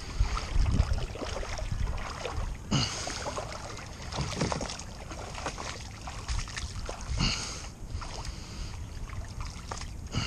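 Water splashing and sloshing as a hooked flathead is pulled through the shallows toward the bank. Wind rumbles on the microphone, and there are several short knocks.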